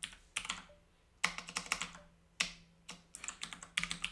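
Computer keyboard typing: short bursts of rapid keystrokes with brief pauses between them.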